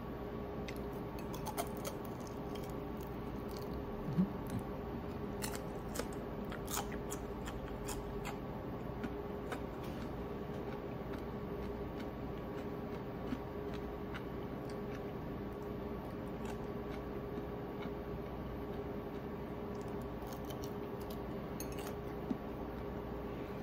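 Quiet eating of deep-fried ponyfish: scattered small clicks and taps of chopsticks on a plate, with chewing, over a steady background hum.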